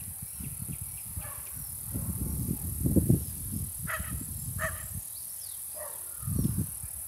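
Gusty wind rumbling on a phone microphone on an open trail, with a dog barking in the distance a few times from about four seconds in. Small bird chirps and a steady high insect buzz run underneath.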